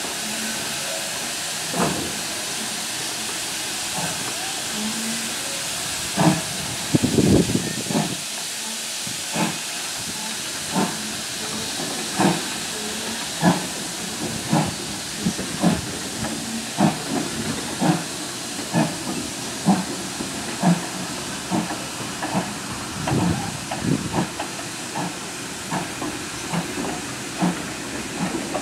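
Steam locomotive pulling away: a steady hiss of escaping steam under its exhaust beats, which come faster as it gathers speed, from about one every second and a half to two or more a second.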